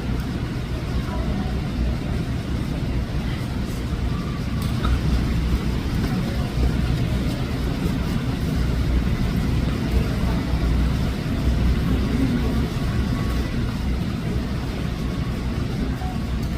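Steady low rumble that dominates throughout, with faint scattered higher sounds over it.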